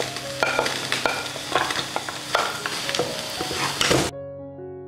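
Hot oil with spices sizzling in a pot as chopped greens are tipped in and stirred with a wooden spatula, which clicks and scrapes against the pan: the tempering (tadka) stage of an Indian vegetable dish. The sizzling stops abruptly about four seconds in, leaving soft piano music.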